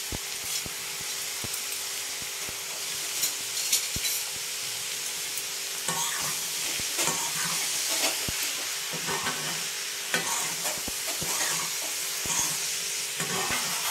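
Grated cauliflower and peas sizzling in a metal pan, with a metal spatula scraping and clicking against the pan as the mixture is stirred. The stirring strokes come thicker from about six seconds in.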